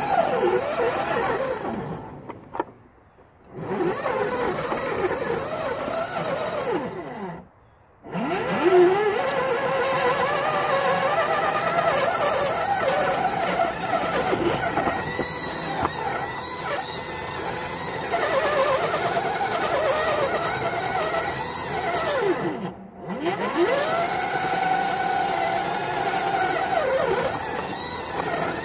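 Motor of a small rail vehicle pushing a homemade snowplow along the track, its whine rising and falling in pitch as it speeds up and slows. It cuts out briefly three times, about two, seven and twenty-two seconds in, each time starting up again with a rising whine.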